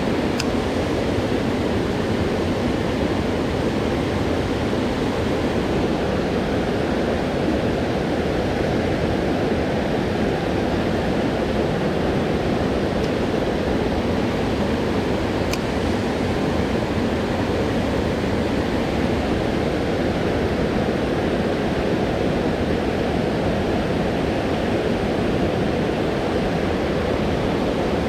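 River water rushing steadily, the constant noise of a full mountain river's current, with a couple of faint ticks.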